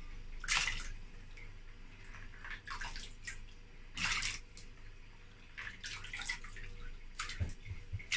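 Handfuls of washed beans and water poured by hand into a pot of water, splashing in short bursts every second or two.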